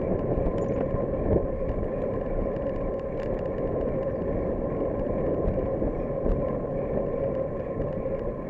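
Bicycle riding along a smooth path, heard from a camera mounted on the bike: a steady rumble of tyres and wind with a constant hum and many small ticks and rattles.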